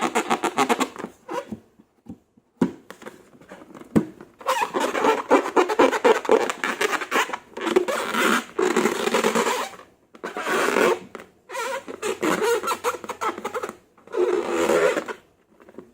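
Slime being squeezed and worked by hand, a sticky, crackly squelching that comes in several bursts, with a couple of single sharp knocks in the first few seconds.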